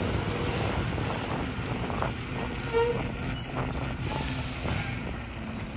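Diesel engine of a Republic Services recycling truck running as the truck drives slowly ahead, a steady low rumble, with a few brief high squeaks near the middle.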